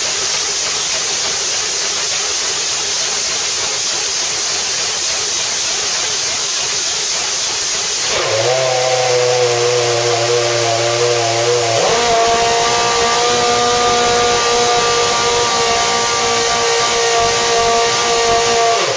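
Renault V8 Formula One engine being warmed up. A loud steady hissing rush for the first eight seconds or so, then the engine holds a steady note, and about twelve seconds in it steps up to a higher steady note that it holds.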